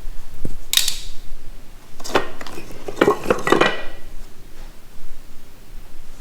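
Wooden beehive parts clattering and knocking as they are handled. There is a dull thump about half a second in, a sharp knock just before a second, then a run of rattling knocks from about two to four seconds in.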